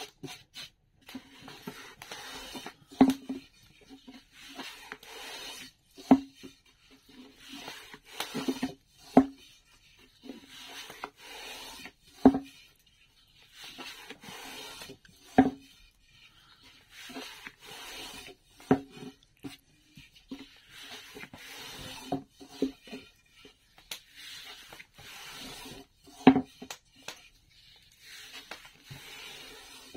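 A long, thin wooden rolling pin, wrapped in thin dough, rolled back and forth across a floured wooden board. It makes repeated rubbing swishes, broken every two to three seconds by a sharp wooden knock as the pin strikes the board.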